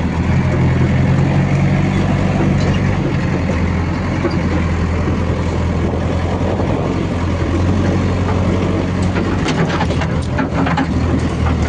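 Heavy machine's diesel engine running steadily at low revs, with a few short clicks or knocks near the end.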